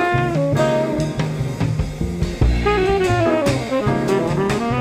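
Jazz background music, a saxophone lead playing sliding notes over bass and drum kit.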